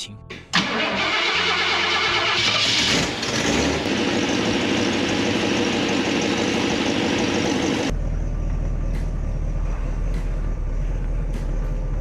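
1962 Ford Thunderbird's 390 V8 being started, catching about half a second in and then running loudly. About two-thirds of the way through the sound changes abruptly to a deeper, steady idle.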